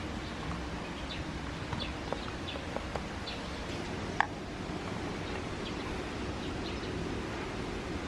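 Scattered short bird chirps over a steady outdoor background hiss, the loudest about four seconds in.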